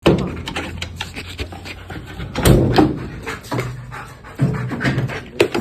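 A German shepherd search-and-rescue dog panting, with a couple of sharp knocks about two and a half seconds in and near the end.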